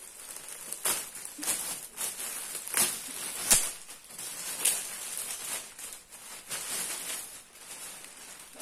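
Irregular rustling and crinkling as a quilted saddle pad is handled and pulled out of its packaging, with one sharper crackle about three and a half seconds in.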